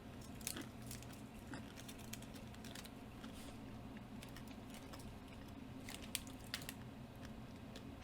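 Scattered faint clicks and taps of small packaged items being handled, over a steady low hum.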